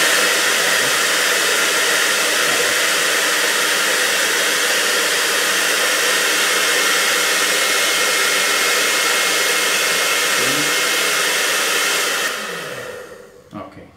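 Hand-held hair dryer running with a steady rush of air and a faint high whine, switched off about twelve seconds in and dying away over about a second.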